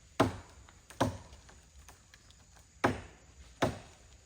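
Four sharp chopping strikes of an axe biting into wood, coming in two pairs about a second apart.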